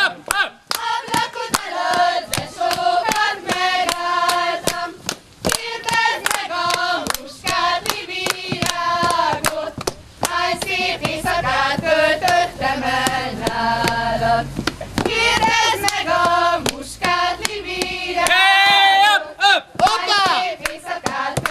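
A group singing a Hungarian folk song, with many sharp hand claps and slaps from the dancers throughout.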